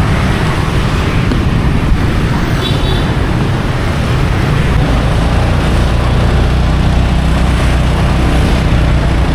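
Steady road traffic and vehicle noise from riding through dense rush-hour city traffic, with a heavy low rumble. A brief high-pitched tone comes about three seconds in.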